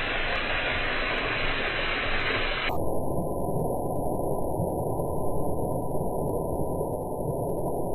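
Artificial rock waterfall: water streaming off a ledge and splashing steadily into a pool. About three seconds in the rush turns abruptly duller and muffled.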